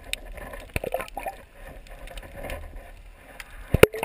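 Muffled underwater sound picked up by a camera in a waterproof housing: a low steady hum with scattered faint clicks and ticks, and a sharp double knock near the end.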